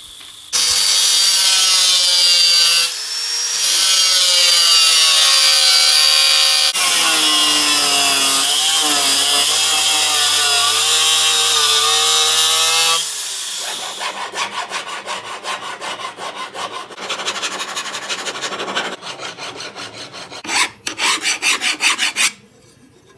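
Electric cutting tool whining as it cuts 2.5 mm iron sheet for about twelve seconds, its pitch dipping as the blade loads. Then a file rasps on the freshly cut steel edge in repeated strokes.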